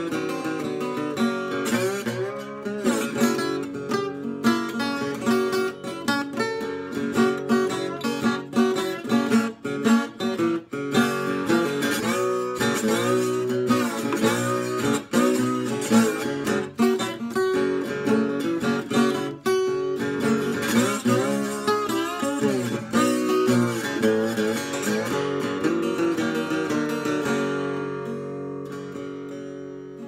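Old German parlor acoustic guitar played bottleneck-style with a metal slide, a 12-bar blues with strummed chords and sliding notes. Near the end the playing stops and the last notes ring out and fade.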